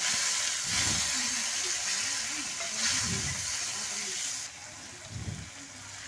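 Tomatoes, onion and garlic frying in mustard oil in a kadhai: a steady sizzle that drops off about four and a half seconds in.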